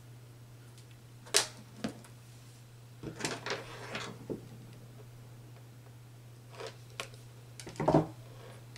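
Hand tools and wiring being handled: pliers picked up and worked at a terminal block, giving a few sharp clicks and knocks, a scraping rustle about three seconds in, and a heavier knock near the end, over a steady low hum.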